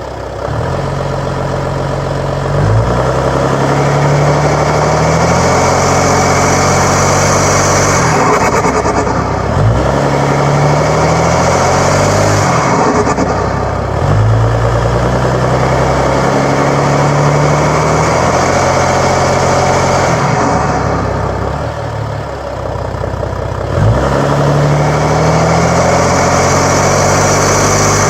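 Audi A5 3.0 TDI V6 diesel, breathing through a K&N cone filter and a 3-inch straight-through exhaust, pulling hard in several bursts with a loud turbo hiss. Three times the throttle is lifted, letting out turbo flutter before it pulls again.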